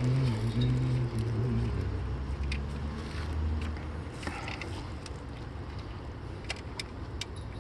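Vehicle engine running, a low hum that drops in pitch and fades over the first four seconds, followed by a few light metallic clicks.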